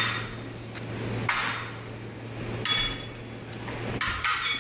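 Steel épée blades striking and scraping against each other in several quick clashes about a second or so apart, a few bunched together near the end, some leaving a brief metallic ring. A low steady hum runs underneath.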